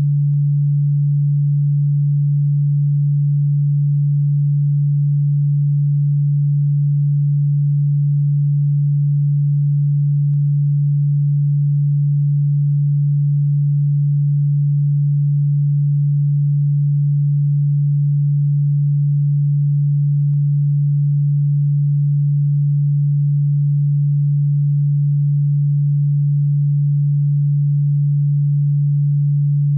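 A low electronic sine tone held at one pitch and one level without a break, sounding like a steady hum. It is played as an insect-repellent sound, although it is not ultrasonic.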